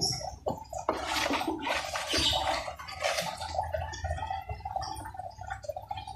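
Rustling and scraping of a paper air filter element and its cardboard box being handled close to the microphone, loudest in the first half.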